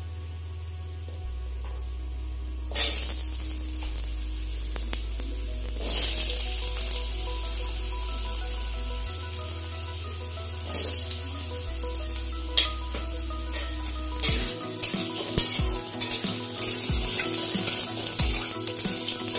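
Diced potatoes sizzling as they fry in hot oil with mustard seeds and nigella in an aluminium kadai. The sizzle grows louder about three seconds in and again at about six seconds. From about fourteen seconds a steel spatula scrapes and taps against the pan as the potatoes are stirred.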